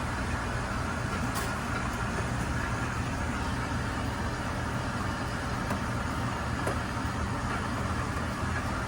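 A steady low mechanical hum with an even rushing hiss over it, unchanging throughout.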